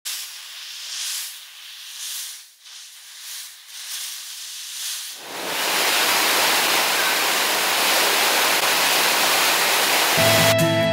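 A thin hissing rush that swells and fades for about five seconds, then the loud, steady rush of a waterfall from about five seconds in. Plucked-guitar music comes in near the end.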